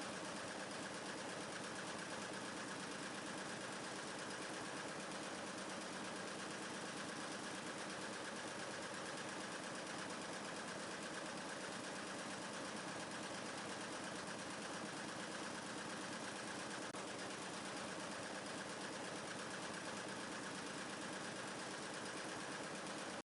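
Quilting machines running, a faint, even machine noise that holds steady without a break.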